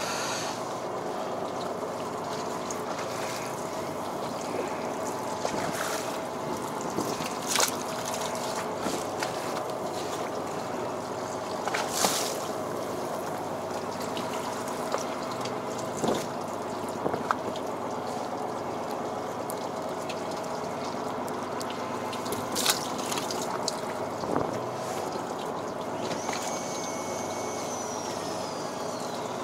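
Steady hum of a fishing boat's machinery, with water trickling and splashing, and a few sharp knocks from handling rod and tackle at the rail. Near the end a high whine slowly falls in pitch.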